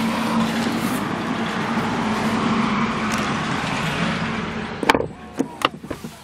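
Steady rushing noise with a low hum that stops abruptly with a thump about five seconds in. A few sharp clicks follow against a much quieter background.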